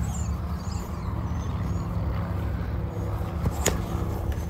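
A steady low outdoor rumble with faint bird chirps, and one sharp clack about three and a half seconds in as the longsword fighter closes on the gravity-hammer swinger: a weapon strike in sparring.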